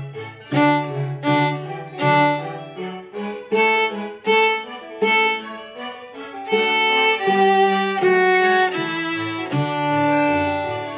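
Violin playing a simple melody in separate bowed notes, with lower accompaniment notes sounding beneath it.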